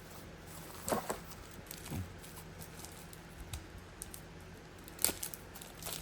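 Small handling noises of camera accessories and packaging being unboxed: a few sharp clicks and taps about one, two and five seconds in, with faint rustling between them.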